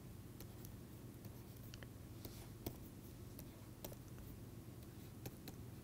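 Faint clicks and taps of a stylus writing on a tablet screen, scattered and irregular, over a low steady hum.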